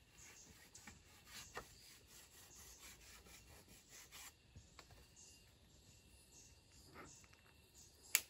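Faint scraping and rubbing on bamboo poles, with scattered light clicks and one sharper click near the end, as the ridge of a bamboo A-frame shelter is worked by hand.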